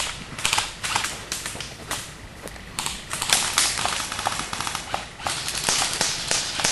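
Airsoft guns firing: sharp pops and clicks, some single shots and some in quick strings, irregular and overlapping from several players, thickest in the second half.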